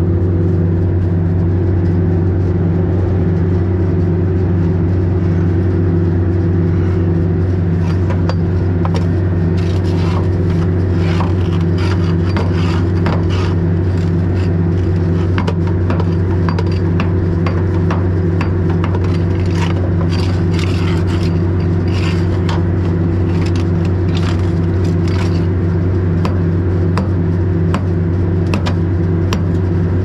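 Farm machine's diesel engine running at a steady speed throughout. From about eight seconds in, irregular clanks and scrapes of metal sound over it.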